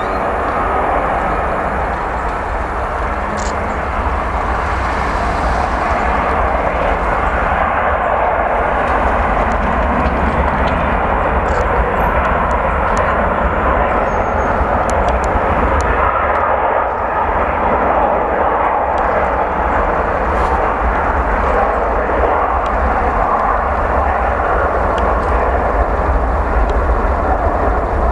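Air China Airbus A330-200 twin-engine jet on its departure run, its engines giving a steady roar that grows slightly louder as it goes.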